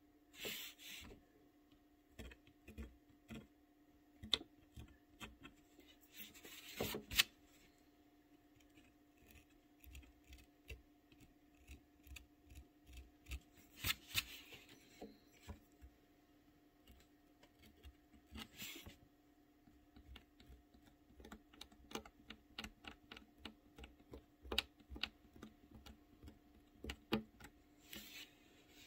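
X-Acto knife blade scraping and scratching watercolor paper to lift out small highlights: faint, irregular ticks and short scratches, with a few longer scrapes. A low steady hum runs underneath.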